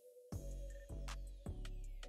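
Background music: soft sustained chords, then a heavy bass beat with sharp percussive hits comes in a moment in, repeating about every half second or so.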